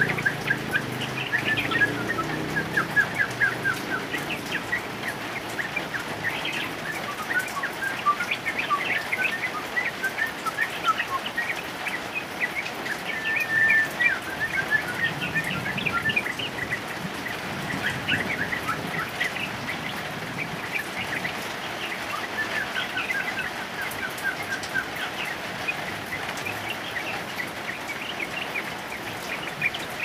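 Yellow-vented bulbul singing bursts of rapid chattering notes again and again, over the steady hiss of heavy rain.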